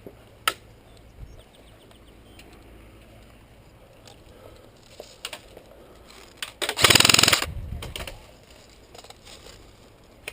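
Airsoft electric gun fired in one short full-auto burst about seven seconds in: a rapid, even string of shots lasting under a second. Faint single pops and clicks are scattered through the rest.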